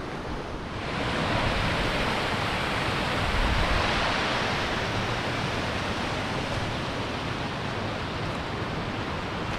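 A fast-flowing fell stream swollen in winter spate: a steady rush of white water that comes up about a second in and holds.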